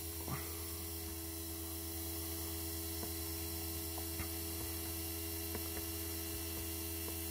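AC motor driven by a homemade three-phase IGBT inverter, running with a steady electrical hum at about 220 V on the DC bus, running smoothly. A few faint clicks come from buttons being pressed on a handheld scope meter.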